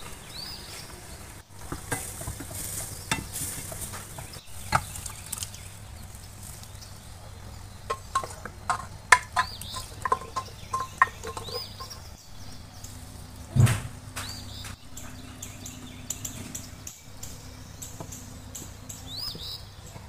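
Cooking in a stainless steel pan: a spatula clinks and scrapes against the metal as a curry is stirred and sizzles, with a heavier knock about two-thirds of the way through.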